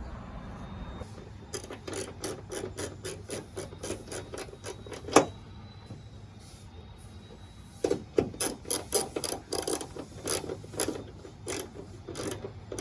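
Hand ratchet clicking in quick runs of strokes, tightening the bolts of a hood strut bracket, with one sharp knock about five seconds in. A pause, then more ratcheting from about eight seconds.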